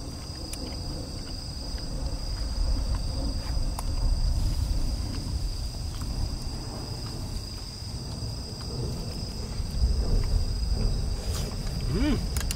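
Insects trilling steadily on one high note over a low rumble that swells and fades. A short pitched sound rises and falls near the end.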